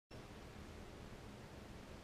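Faint steady room tone, a low even hiss with no distinct sounds.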